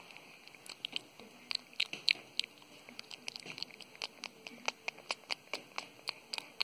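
Fingertips tapping lightly and quickly right at the camera and its microphone: an irregular run of soft, sharp taps, several a second.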